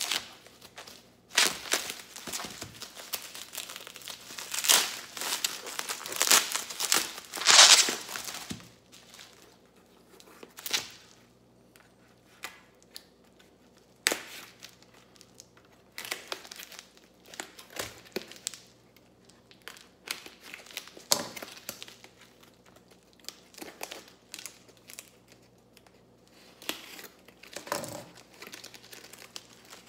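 Plastic packaging crinkling as it is pulled off a parcel, in loud bursts over the first eight seconds or so. Then quieter scrapes and clicks of a knife cutting into a cardboard mailer, and tape being torn from it.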